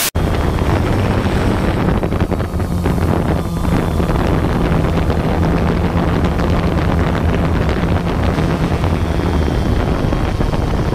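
Strong wind blowing across the microphone, with a steady low hum underneath.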